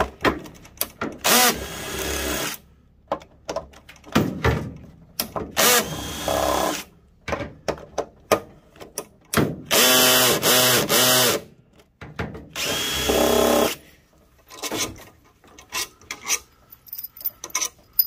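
Cordless DeWalt drill backing out the bolts that hold a front-load washer's direct-drive motor stator. It runs in several short bursts, its pitch rising and falling within a burst, with metal clicks and clinks of the loosened bolts being handled between the bursts and near the end.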